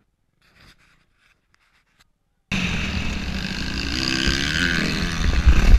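Near silence, then about halfway in a sudden switch to a dirt bike's engine running hard at speed, its pitch rising and falling, with heavy wind noise on the helmet camera's microphone.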